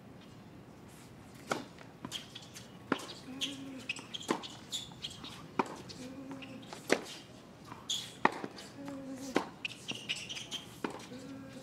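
A tennis rally on a hard court: sharp pops of the ball off the racket strings and off the court, about one every second and a half, starting about a second and a half in. Short high squeaks come between them.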